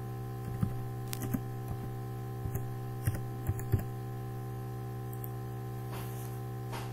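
Keystrokes on a computer keyboard: about eight uneven taps over the first four seconds as a short word is typed, then a few fainter clicks near the end, over a steady electrical hum.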